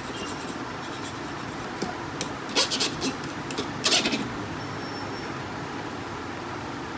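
Laser printer fuser parts being handled: a few short scrapes and clicks between about two and a half and four seconds in, over a steady background hum.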